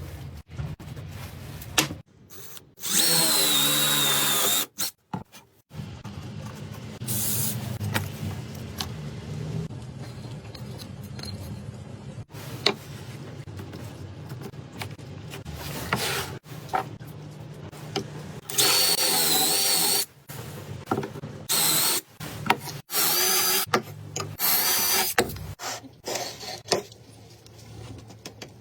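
A handheld power tool's motor, likely a drill, runs in several short bursts of a second or two each, its whine wavering in pitch. Between the bursts come sharp clicks and knocks.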